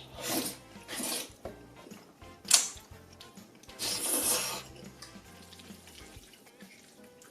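Close-miked eating sounds: four loud slurps and wet mouth noises, the third a sharp, brief smack or clink about two and a half seconds in. Faint background music underneath.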